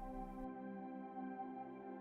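Soft ambient background music of steady, sustained tones that hold without a beat.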